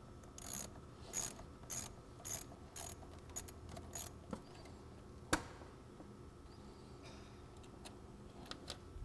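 Socket ratchet wrench clicking as it loosens the nut on a battery's positive terminal clamp: a run of ratchet clicks about twice a second, coming quicker near the middle, then one sharp, louder click a little past halfway.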